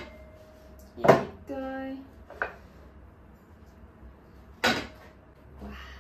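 A metal loaf tin knocking on a countertop as a baked loaf is turned out of it onto a wire cooling rack: a sharp knock about a second in, a softer one soon after, and another knock near five seconds. A short steady tone sounds just after the first knock.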